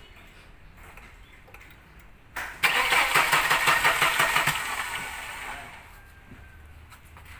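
Vintage Mercedes-Benz engine being cranked by its starter for about three seconds, a loud fast rhythmic churn that fades off, without the engine catching: it cranks but will not start, a fault the uploader puts down to no spark and no fuel spray.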